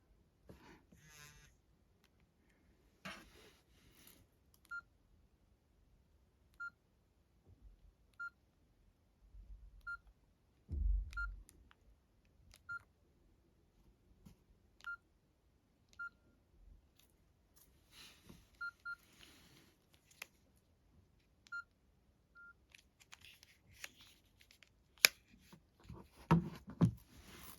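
Nokia E65 keypad tones: short beeps, all at one pitch, one every second or two as keys are pressed, mixed with clicks and rustling from handling the phone. A dull thump about eleven seconds in and a few sharp clicks near the end.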